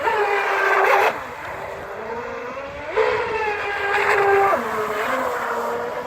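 Radio-controlled model jet ski's motor whining under throttle, its pitch shifting as the throttle changes. It gets louder twice: for about a second at the start and for about a second and a half from about three seconds in.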